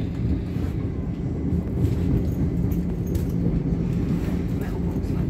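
Passenger train in motion, heard from inside the carriage: a steady low rumble of wheels on track with a constant hum.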